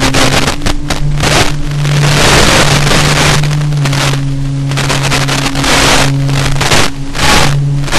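Electric motor and propeller of an RC flying wing droning steadily, heard from its onboard camera, with repeated gusts of wind rushing over the microphone as the plane banks. The drone steps up slightly in pitch about a second in and settles back down near the middle.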